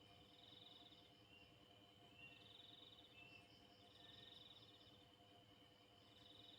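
Faint night insects trilling: a short, high buzzing trill repeats about four times, roughly every two seconds, over a steady faint high drone.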